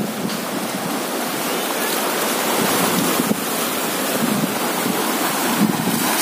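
Sea waves washing ashore, with wind buffeting the microphone.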